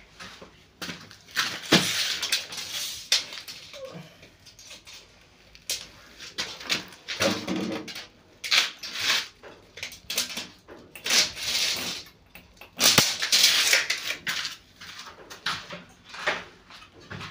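A steel trowel scraping over cement render in irregular strokes, each about half a second to a second long. There are a couple of sharp knocks, one early and one about thirteen seconds in.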